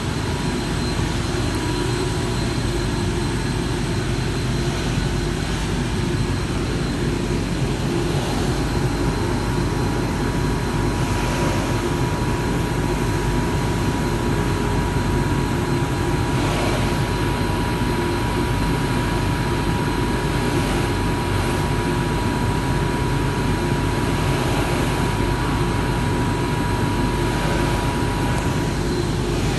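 Timesaver wide-belt grinding and deburring machine running steadily, a dense low hum with a thin high whine over it.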